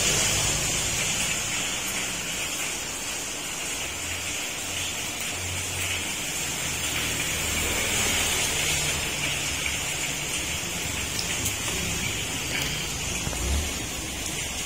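Heavy rain pouring down, a steady hiss, with a low rumble coming and going underneath.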